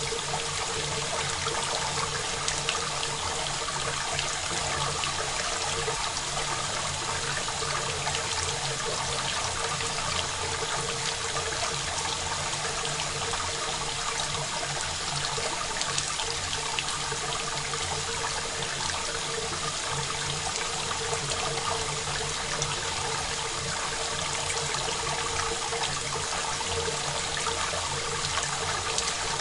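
Steady rain falling, a dense even patter of drops with no reverb.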